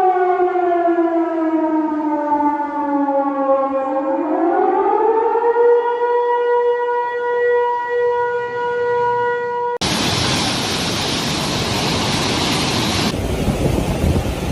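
A siren wailing: its tone sinks slowly, swings back up and then holds steady. About ten seconds in it cuts off suddenly and a loud, steady rushing noise takes over.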